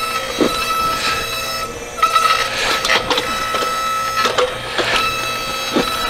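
Electric motor and hydraulic pump of a homemade electric 360-degree backhoe running with a steady whine while the hydraulics work the arm and bucket through soil, with a couple of short knocks. The machine is running nice and smooth.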